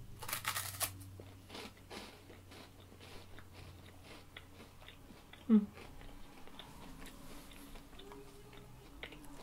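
A bite into a dry chocolate wafer, with a crisp crunch just after the start, followed by chewing with soft crunches. About halfway through, a short low throaty sound falls in pitch and is the loudest moment.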